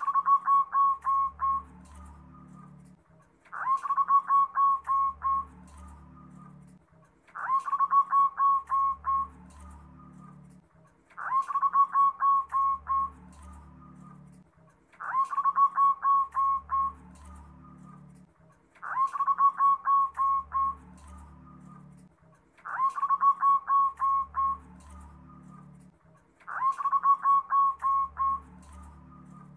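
Zebra dove (perkutut) cooing in repeated calls about every four seconds, eight in all. Each call opens with a rising note and runs into a rapid string of short, clipped notes lasting about two seconds.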